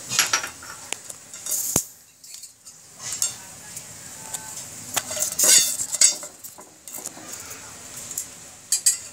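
Cooking spoon scraping and clinking against a frying pan in irregular strokes, with a few sharp knocks, as green chilies are stirred in the pan to fry.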